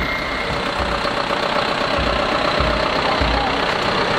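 A heavy vehicle's engine running, likely a lorry or tractor pulling a carnival float, with regular low thumps about every 0.6 seconds.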